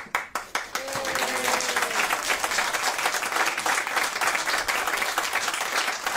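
A group of people applauding, the clapping starting suddenly and going on steadily.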